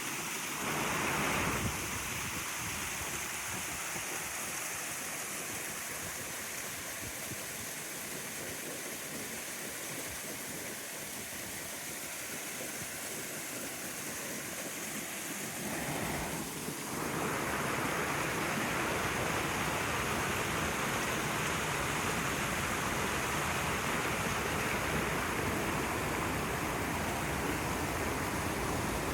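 Running water, a steady rushing flow with no distinct splashes; a little over halfway through it grows louder and fuller.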